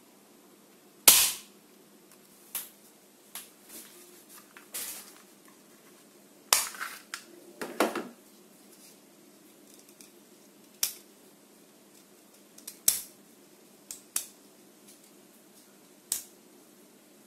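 Plastic toy pistol firing a pellet with one loud sharp crack about a second in, followed by a series of plastic clicks and clatters from handling the gun and taking out and reloading its magazine, spread out through the rest.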